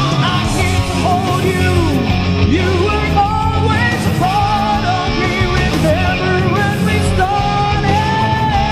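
Rock music from a band recording: a full band mix with a lead line that bends and slides in pitch over it.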